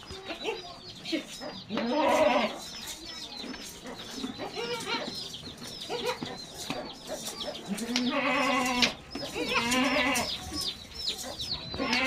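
Goats bleating: four loud, wavering bleats, about two seconds in, twice between eight and ten seconds in, and near the end. A continuous rapid high-pitched chirping runs underneath.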